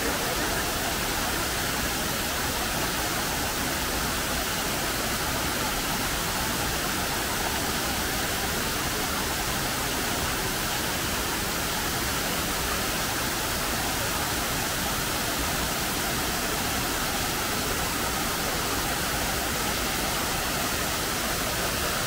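Shiraito Falls, a wide, low waterfall of many thin threads of spring water, falling with a steady, hissing rush that never lets up.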